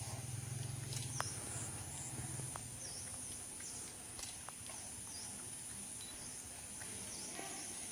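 Outdoor ambience with a steady high insect drone and short repeated chirps about once a second, a low hum for the first couple of seconds and a few small clicks.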